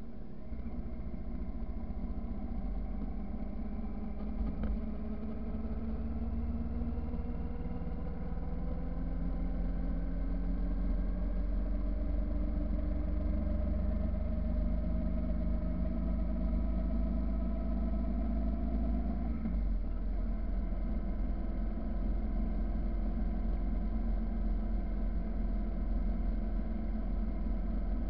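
Motorcycle engine running under way, its note rising slowly and steadily as the bike gathers speed, then dropping abruptly about two-thirds of the way through and holding steady after that. A steady low wind and road rumble lies underneath.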